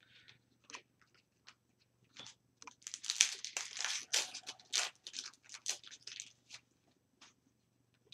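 Hockey card pack wrapper crinkling and tearing open in the hands. It makes a run of short crackles that is thickest about three to five seconds in.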